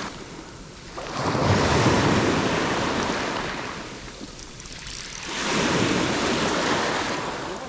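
Sea waves washing in twice, each one a rush of water that swells and fades over two or three seconds.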